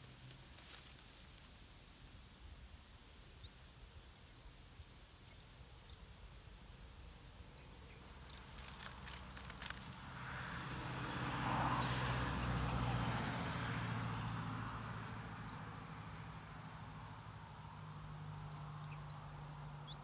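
Yellow-vented bulbul nestling begging with short, thin, high peeps, about two a second, which thin out to a few scattered calls near the end. Some crackling clicks come shortly before the middle, and a swell of low rumble and hiss in the background, loudest just after the middle, fades again.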